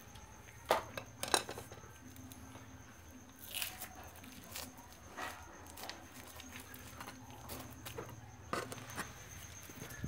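A few sharp clicks and light knocks from a screwdriver and small fan parts being handled during the fan's disassembly. The two loudest come about a second in, then scattered faint ticks follow over a low steady background hum.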